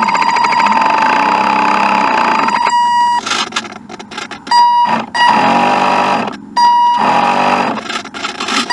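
Electric drive motor of a radio-controlled boat whining with a steady high tone that dips and swells in pitch several times as the throttle changes. About three seconds in, the sound breaks up into crackles for about a second.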